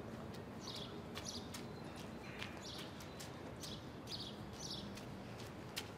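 Small birds chirping in short repeated calls, with faint footsteps and a low steady hum of outdoor background.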